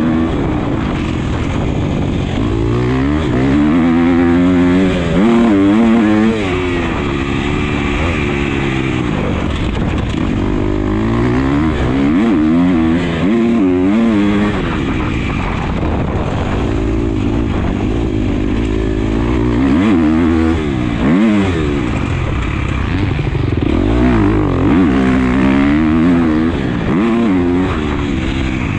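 Motocross dirt bike engine heard close up from onboard, revving hard with its pitch rising and falling again and again as the rider goes up through the gears and backs off for corners.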